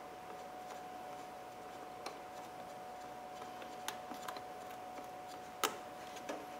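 A few small, sharp metal clicks of a flat-blade screwdriver working at a hose clamp on a coolant hose, spaced irregularly, the loudest about five and a half seconds in, over a faint steady hum.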